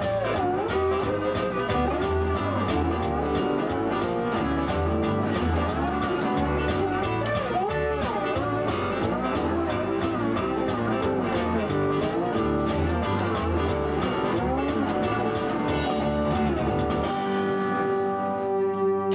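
Slide electric guitar playing a blues over a backing band's bass and drums, the notes gliding up and down under the slide. About 17 s in the band stops and a last chord rings out, cut off sharply at the end.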